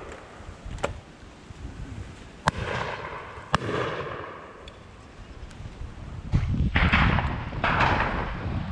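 Shotguns firing on a driven pheasant shoot: scattered single shots from several guns, some sharp and distant. Two louder bangs near the end have long rolling echoes.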